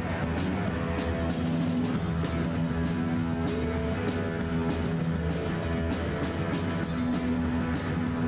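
Rock band playing live: electric guitar over bass guitar and drums, in a steady, driving rhythm.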